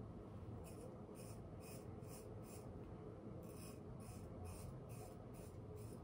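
Straight razor scraping stubble off a lathered face in short, quick strokes: a run of about five strokes starting about a second in, then a second run of about six after a brief pause.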